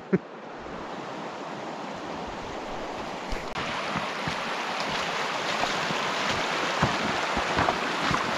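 Shallow river water rushing and splashing over a gravel riffle, with wind on the microphone and scattered small splashes and knocks. It gets louder about three and a half seconds in.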